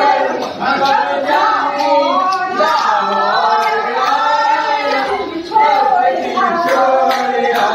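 A group of voices singing together without instruments, with hands clapping along in time.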